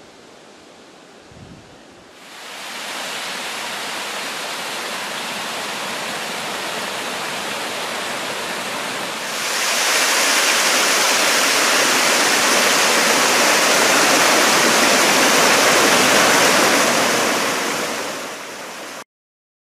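Small mountain stream cascading over rocks: steady rushing water that comes in about two seconds in, grows louder about nine seconds in, and cuts off suddenly near the end.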